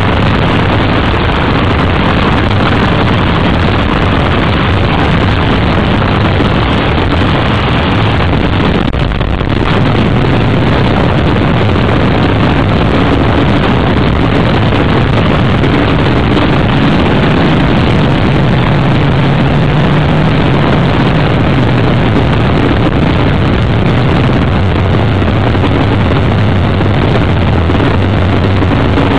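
Offshore racing powerboat's engines running at speed, a loud steady drone heard on board with wind rushing over the microphone. The sound briefly drops about nine seconds in.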